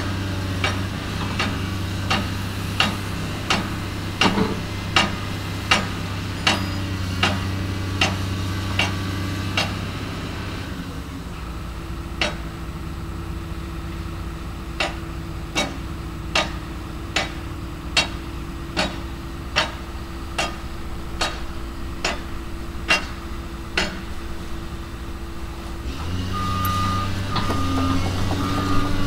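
Heavy construction machinery running with a steady low rumble, under a sharp ticking about one and a half times a second that stops briefly about ten seconds in. A back-up alarm starts beeping near the end.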